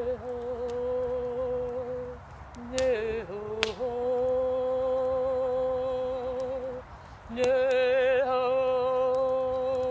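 A woman's voice chanting three long held notes, the last one wavering; two sharp strikes on a hand-held frame drum come about three seconds in.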